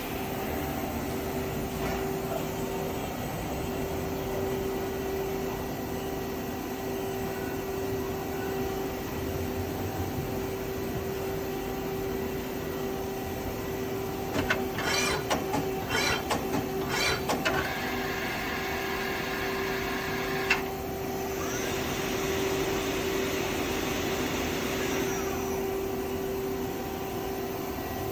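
Amada S10 CNC turning center running through its machining cycle with a steady hum. About halfway there is a short run of sharp clattering, then a brief whine, then a few seconds of hissing.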